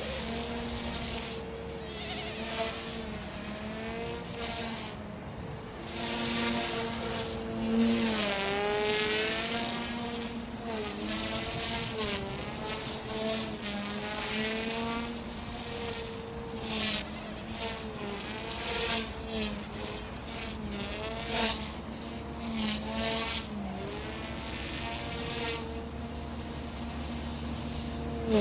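OMPHOBBY M2 mini electric RC helicopter flying 3D aerobatics at full throttle: a whine from its direct-drive brushless motor and rotor. The pitch wavers up and down as it manoeuvres, and it swells in loudness as it swoops past.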